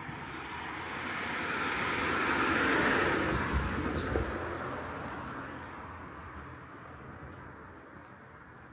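A car driving past, growing louder to a peak about three seconds in and then fading away.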